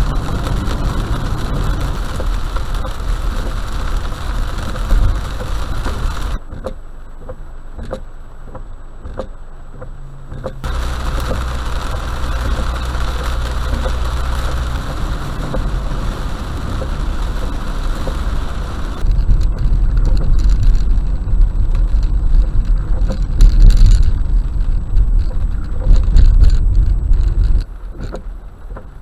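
A car driving in rain, heard inside the cabin: steady road and tyre noise mixed with rain on the car. The sound changes abruptly about six, eleven and nineteen seconds in, as it cuts between different stretches of driving.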